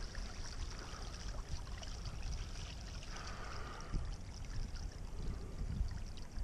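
Water trickling and splashing from a paddle's strokes beside a stand-up paddleboard, over a low rumble of wind on the microphone.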